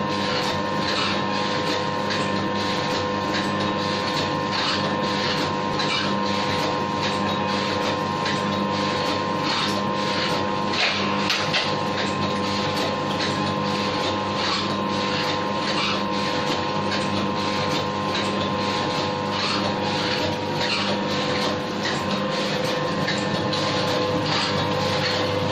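Coffee sachet filling and packing machine running steadily: a constant mechanical hum with an even, repeated clicking of its working cycle.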